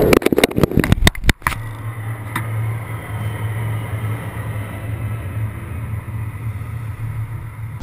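Sharp knocks and scrapes of a hand handling a hood-mounted action camera for about the first second and a half, then a steady low hum of the car's engine idling.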